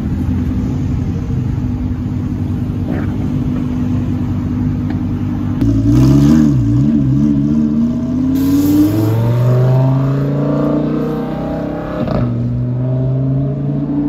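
Lamborghini Huracán's V10 running at low revs, blipped up and down about six seconds in, then rising in pitch as the car accelerates away and settling into a steady higher drone.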